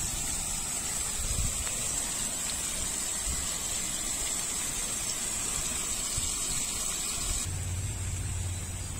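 Steady rushing of flowing water. Near the end it cuts to a different, lower steady hum.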